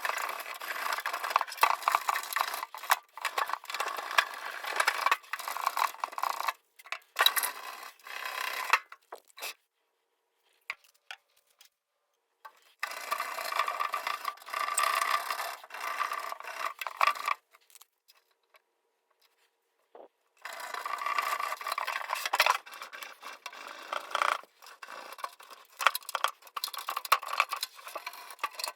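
Spray paint being scrubbed off a steel tool case by hand: a dry, scratchy rubbing in bouts of several seconds, stopping for a few seconds about nine seconds in and again after about seventeen seconds.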